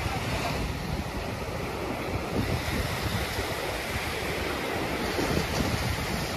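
Ocean surf breaking and washing up a sandy beach, with wind buffeting the microphone as a low rumble.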